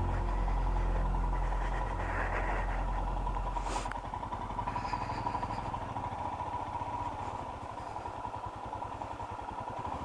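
Motorcycle engine running, then dropping to a steady idle about four seconds in, just after a sharp click. A steady thin tone sits over it.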